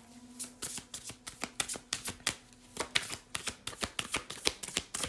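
Tarot cards being shuffled by hand: a quick, uneven run of sharp card clicks and flicks, several a second.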